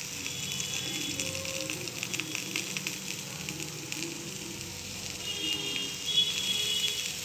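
Wet boiled bitter gourd slices dropping into hot oil and spices in a frying pan, sizzling steadily with many small crackles.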